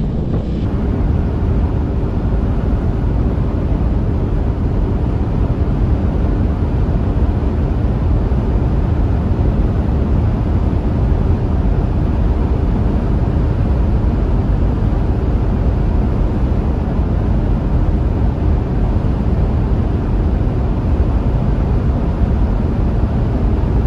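Toyota Land Cruiser 300 GR Sport driving at a steady speed: a loud, even rush of road and wind noise with a faint, steady engine hum underneath.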